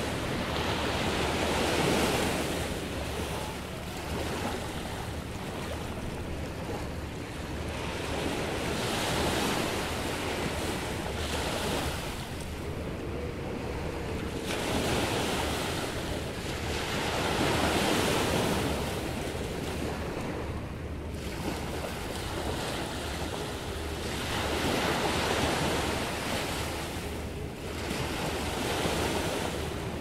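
Atlantic surf breaking on a sand-and-pebble beach, the wash swelling and falling back every several seconds, with wind noise on the microphone.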